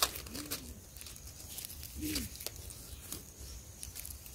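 Gloved hands scraping and rummaging through loose dry soil and leaf litter, with scattered light scratches and ticks. Two short low hooting notes, rising then falling, sound about a second and a half apart.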